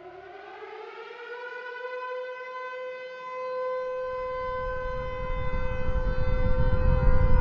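A siren winding up in pitch over the first second, then holding a steady wail, with a low rumble swelling louder beneath it through the second half.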